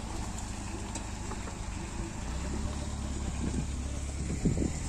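Light van's engine running steadily at low revs, a constant low hum.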